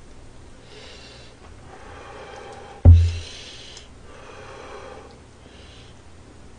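Close-miked breathing through the nose, several soft breaths in and out, with one sharp knock about three seconds in, the loudest sound.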